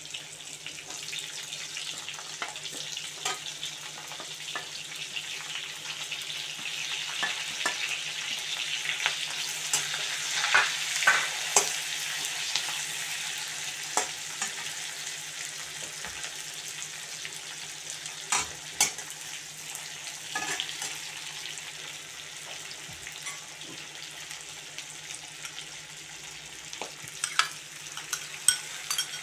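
Sliced onions sizzling as they fry in a kadai, with a steady hiss, stirred with a perforated metal skimmer that clicks and scrapes against the pan now and then. Near the end chopped tomatoes drop into the pan with a few quick clatters.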